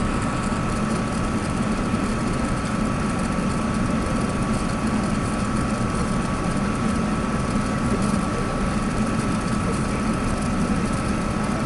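Steady cabin noise inside an Airbus A380 with its Rolls-Royce Trent 900 engines running: a constant rush of engine and air noise with a steady high whine.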